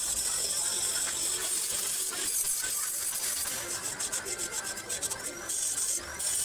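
Light metallic clinks and rubbing as steel tube pieces are handled and fitted against a tubular metal frame, with a quick run of clicks about halfway through, over a steady high hiss.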